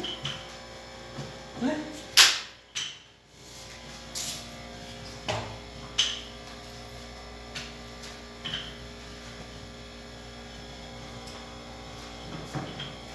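A steady electrical hum with scattered clicks and knocks from a frying pan and utensils on a gas stove as a roti is cooked. The loudest knock comes about two seconds in.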